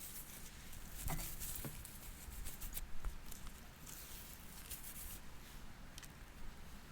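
Faint handling sounds of a fashion doll and its packaging or clothing: soft rustling and scratching, with a few light plastic taps.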